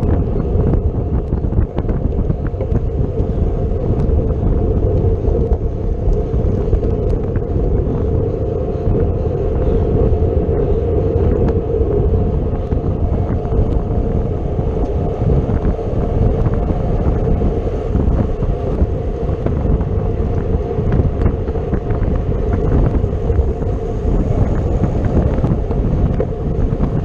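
Wind rushing over a bicycle-mounted camera's microphone at race speed, steady and loud, with a constant hum underneath and scattered small clicks and rattles.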